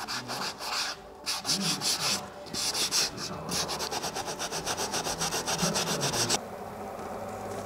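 Hand sanding on wood with a sanding block: quick back-and-forth rubbing strokes that stop about six seconds in.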